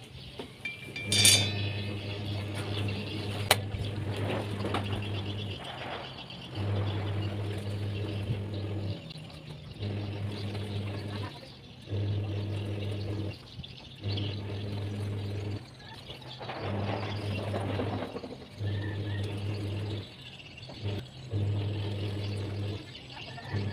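A low machine hum that cuts in and out every couple of seconds. About a second in, a sharp metallic clank with a brief ring as a steel motorcycle brake disc is set down on a wooden block.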